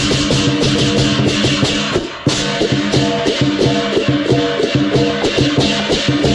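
Lion dance percussion of drum, hand cymbals and gong playing a fast, dense rhythm, with a brief break about two seconds in.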